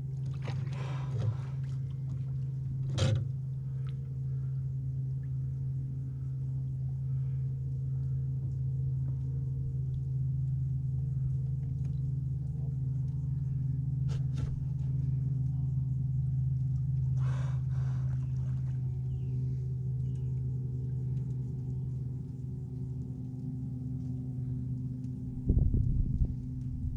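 A steady, low motor hum holding one pitch, with a few sharp clicks. Low thumps begin near the end.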